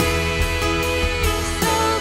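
Instrumental worship-band music with guitar over a steady beat, no singing.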